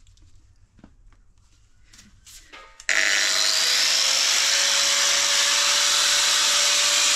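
A few light handling clicks, then about three seconds in an angle grinder with a flap disc starts and runs steadily with a held whine, cleaning up box-section steel.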